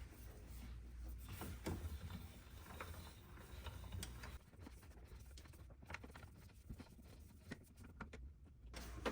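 Faint, scattered clicks and knocks of a 13 mm socket wrench being worked on a bolt at the car battery, over a low steady hum.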